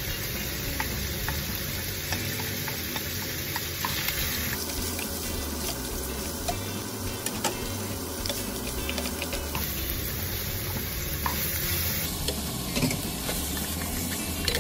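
Diced meat, onion and mixed vegetables sizzling in a nonstick frying pan, stirred with a wooden spoon that clicks and scrapes against the pan.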